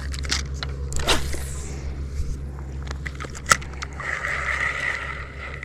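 Fishing reel being worked: sharp clicks, then from about four seconds in a steady high whine as the line is reeled in. This is a reel that needs lubricant.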